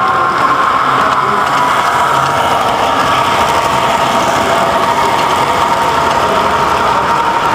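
Toy trains running on three-rail tinplate track: a steady whirring of electric motors and rolling wheels with a constant whine.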